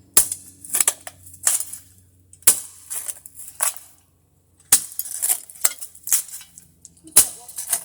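Metal hand digging tool chopping and scraping into gritty dirt while a hole is dug by hand: a dozen or so sharp crunching strikes with metallic clinks, irregularly spaced, with a short pause about halfway through.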